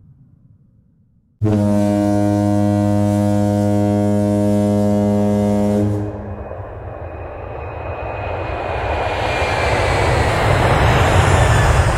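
A deep, steady horn blast sound effect starts abruptly about a second and a half in and holds for about four and a half seconds. It is followed by a rushing noise with a faint falling whistle that swells steadily louder.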